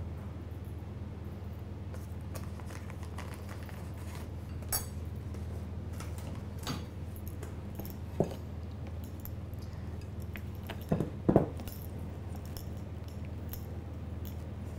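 A few light clinks and taps of a metal spoon and a spatula against a glass mixing bowl as cornflour is folded into stiff meringue. The loudest pair of knocks comes a little past the middle, over a steady low hum.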